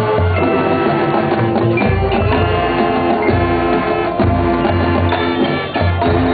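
Marching band playing: brass holding chords over a drumline and deep bass drum hits.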